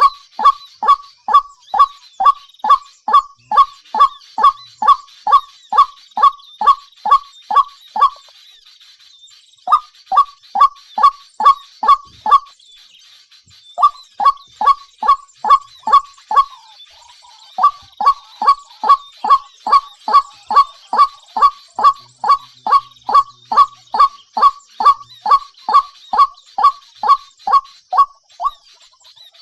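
A bird's call repeated about twice a second, each a short, loud note falling in pitch. The series breaks off twice for a second or so, over a faint high hiss.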